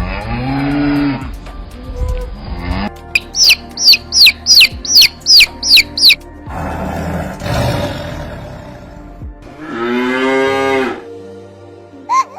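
A series of animal calls over background music: a low, drawn-out call at the start and another about ten seconds in, and between them a quick run of about nine high chirps, each falling in pitch.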